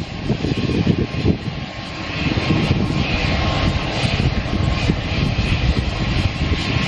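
Aircraft engine running: a loud, rough, steady rumble with a rushing hiss above it.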